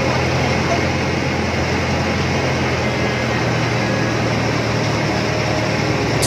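Motorboat engine running steadily while the boat is under way, heard from on board: an even low hum under a broad rush of water and air.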